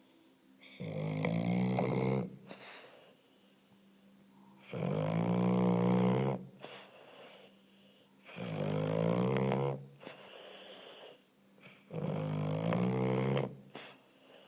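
English bulldog snoring: four drawn-out, buzzing snores about every three and a half seconds, with quieter breaths between, typical of the breed's short, flat-faced airway.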